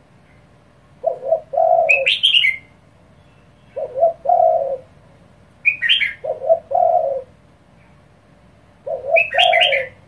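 Spotted dove cooing, four short low coo phrases a few seconds apart, each of two or three notes, in the fast, pressing 'kích bổi' calling style. Higher chirping notes come with three of the phrases.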